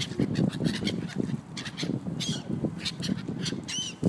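A flock of waterbirds calling together: gulls giving many short, sharp squawks and geese honking, with one clear rising-and-falling gull cry near the end.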